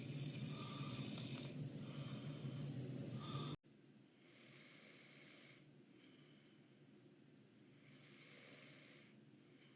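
A sleeping man snoring through his open mouth: two airy, drawn-out breaths a little over a second long, about four seconds apart. Before them, a louder steady hum cuts off abruptly about three and a half seconds in.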